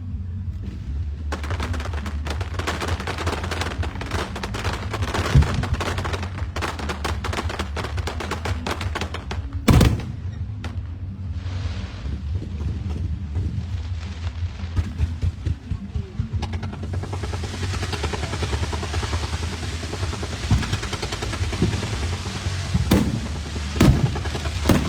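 Fireworks going off: dense rapid crackling reports like a string of firecrackers, a single loud bang about ten seconds in, then a hissing crackle and a few sharp booms near the end.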